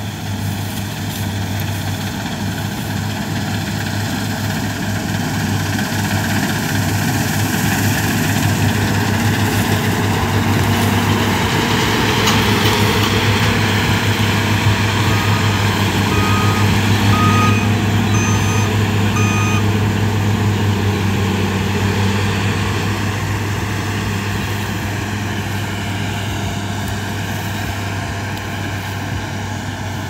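New Holland TC5.30 combine harvester running steadily while it harvests wheat. It grows louder as it passes close by around the middle and then fades as it moves away. About halfway through, a short series of five high electronic beeps sounds.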